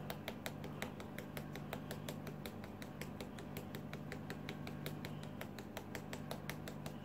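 Plastic flour sieve being tapped by hand to shake flour through into a mixing bowl: an even run of light clicks, about five or six a second.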